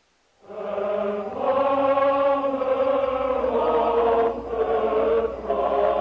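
Soundtrack music of voices singing long held, chant-like notes, starting out of silence about half a second in.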